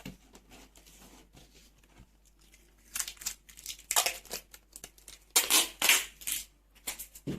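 Cardboard and adhesive tape being handled while closing a box: rustling, tearing crinkles in a few bursts, with a cluster about three seconds in and a louder one after about five seconds.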